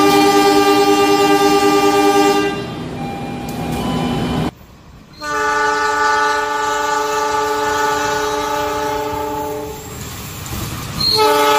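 Train horn sounding a chord of several steady tones in long blasts. The first fades out after about two and a half seconds. After a short break a longer blast of about four seconds follows, and another begins near the end.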